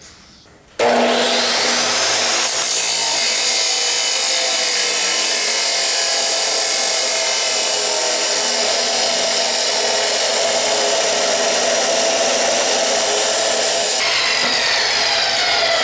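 Metal-cutting chop saw starting up and cutting through square steel tubing, running at a steady pitch. Near the end the trigger is let go and the motor winds down with a falling whine.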